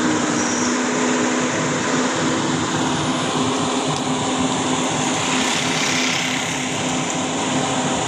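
Heavy engine running steadily with a constant hum, under an even rush of water spraying from a water truck's hose.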